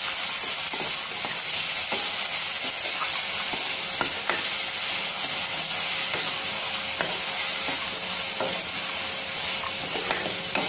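Wooden spatula stirring drumstick flowers, onion and tomato frying in oil in a metal kadai: a steady sizzle with irregular clicks and scrapes of the spatula against the pan.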